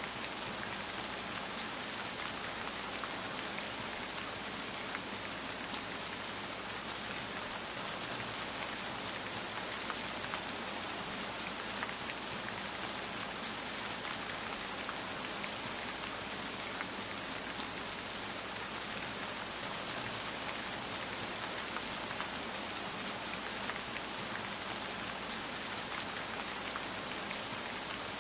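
Steady rain falling, a dense even hiss of drops striking a surface, with faint individual drop ticks scattered through it.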